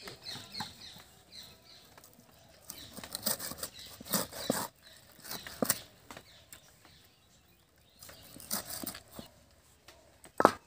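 Irregular knocks and short scrapes from a rui fish being cut up and handled.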